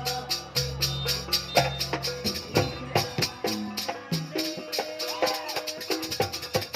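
Jaranan dance music: a fast, steady percussion beat with held pitched tones over it, and low held tones that drop away about two seconds in.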